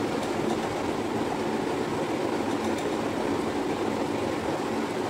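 A steady, low rushing noise with no change in level, with faint handling ticks of the hair being braided barely above it.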